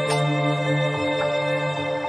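Instrumental background music with slow, held chords; the notes change about a second in.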